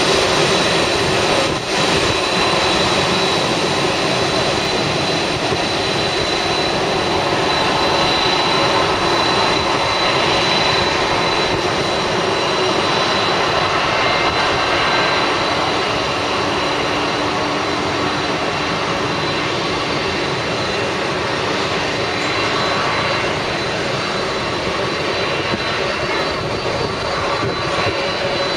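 Boeing 747-400D jumbo jet's four turbofan engines at taxi power: a steady jet rush with a high whine held on one pitch, growing slightly fainter as the aircraft taxis away.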